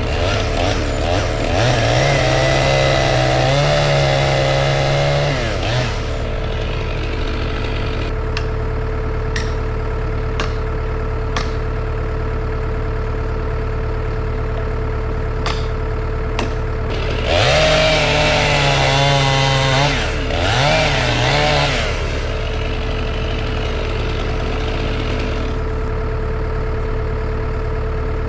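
Chainsaw revved up to full speed twice, each time for a few seconds, over a steady engine drone, with several sharp clicks in between.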